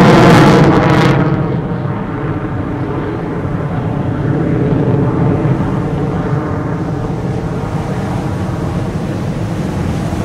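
Fighter jet passing at an air show: loud at the start, then its high hiss falls away after about a second and a lower, steady engine rumble carries on as it moves off.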